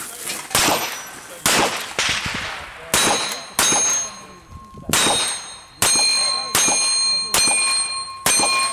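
Ten revolver shots fired at an uneven pace of about one a second, most of them followed by the clang of the hit steel spinner target, whose ringing tone carries on until the next shot.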